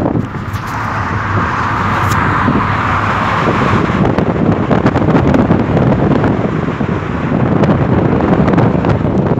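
Road and engine noise inside a moving car, with wind rushing over the phone's microphone. Scattered clicks and rubbing from the phone being handled.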